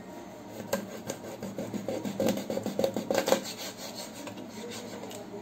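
Kitchen knife sawing back and forth through a rawas (Indian salmon) steak on a wooden chopping board: a fast run of rasping strokes, loudest in the middle, with one sharp knock a little under a second in.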